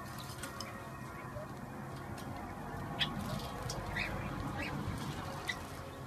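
Zebra finch splashing as it bathes in a metal bowl of water, with four short finch calls in the second half.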